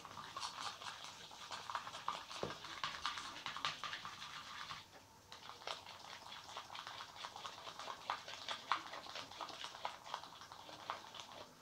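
Plastic fork stirring a watery mix of glue and water in a bowl, with quick small scrapes and clicks against the bowl. The stirring stops for a moment about five seconds in, then starts again.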